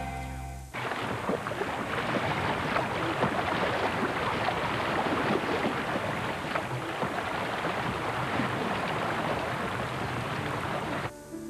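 Rushing, splashing river water as kayak paddles churn through choppy rapids: a dense, steady wash with small crackling splashes. It starts abruptly about a second in and cuts off near the end.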